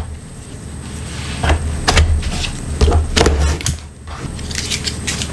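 Plastic battery latches on a Toshiba Tecra A50 laptop being slid to unlock and the battery pack being pulled out of its bay. Several sharp plastic clicks and knocks sound over low handling rumble.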